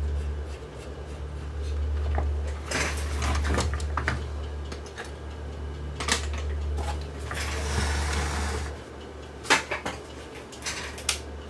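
Clicks, knocks and rattles of cables being plugged into a CRT television's chassis board and the plastic cabinet being shifted on a workbench, over a steady low hum that stops about nine seconds in.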